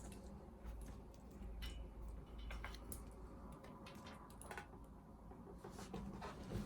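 Faint, scattered clicks and light taps from computer parts being handled, over a low steady hum.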